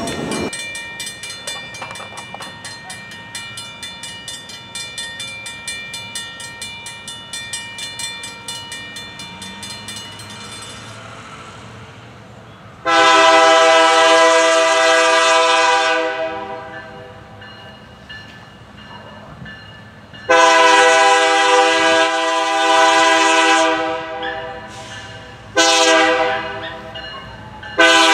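Norfolk Southern locomotive's multi-chime air horn sounding the grade-crossing signal as the train approaches: a long blast, a second long blast, a short one, and the last long one starting at the end. Before the horn, a crossing bell rings rhythmically and fades out about eleven seconds in.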